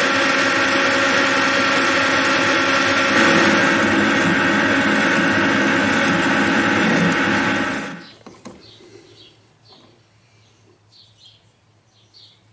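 Metal lathe running steadily under power, a loud hum of several held tones over a hiss as it turns a part in a four-jaw chuck. It cuts off sharply about eight seconds in, leaving only faint clicks and handling sounds.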